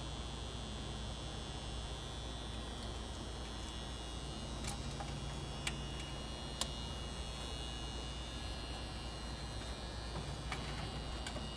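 A steady electrical hum with a thin high whine above it, broken by a few light clicks and taps, the sharpest about two-thirds of the way in.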